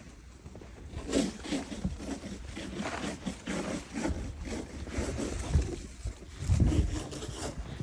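Snow being pushed and scraped in a run of irregular crunching scrapes, with wind rumbling on the microphone. There is a louder gust or thump about six and a half seconds in.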